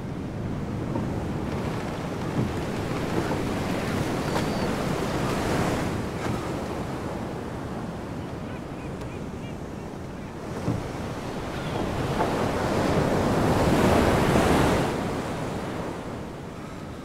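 Heavy surf in a storm, with waves breaking and wind blowing. The rush swells twice, the second and louder surge coming shortly before the end.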